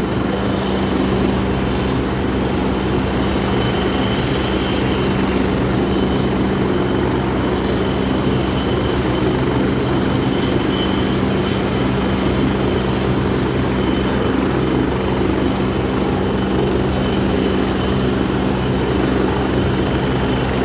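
Helicopter running at a steady pitch: a loud, constant drone with a fixed hum that neither rises nor falls.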